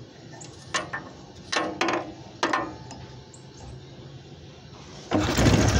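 Old single-cylinder go-kart engine being hand-started: a few short scraping strokes as the starter rope is handled, then about five seconds in a hard pull cranks the engine in a loud whirring burst.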